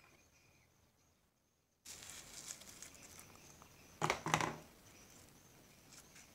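Sticky slime crackling and squelching as a hand pulls a blob of soft pink slime from its cup and squeezes it, starting abruptly about two seconds in, with two louder wet squishes a little after four seconds.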